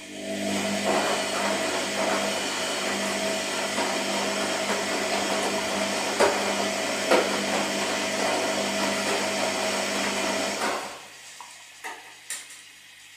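Washing machine running: a motor hum under a churning, rushing noise for about ten seconds, then it stops abruptly, followed by two or three light clicks.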